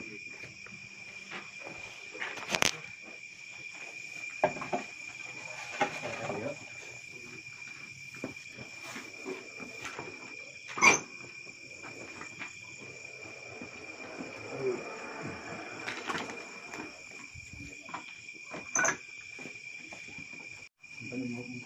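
Steady chorus of night insects, a continuous high-pitched trilling, with scattered knocks and clicks of handling, the loudest about eleven seconds in.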